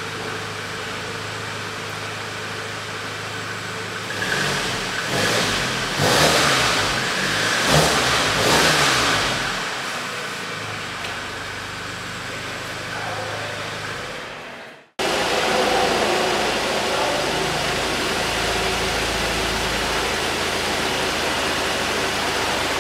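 Volkswagen Golf VII GTI's turbocharged 2.0-litre four-cylinder idling at the twin tailpipes, then revved several times, rising and falling, before settling back to idle. After a sudden cut, a different steady noise fills the last third.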